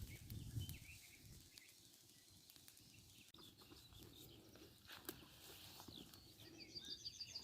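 Quiet outdoor ambience with faint scattered bird chirps, and a bird's quick run of repeated high notes near the end.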